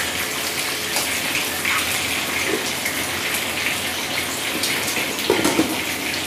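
Fish frying in hot oil in a pan: a steady sizzle with fine crackles, and a few light knocks of metal tongs against the pan about five seconds in.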